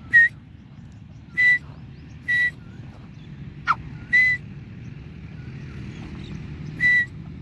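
Short, high whistled notes: five brief calls, each on one steady pitch, spaced irregularly, with one quick falling note near the middle.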